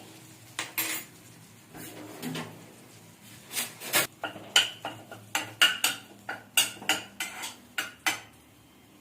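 A metal utensil clinking and tapping against a cooking pan: a few clinks, then a quick run of sharp clinks, about two a second, from about three and a half to eight seconds in.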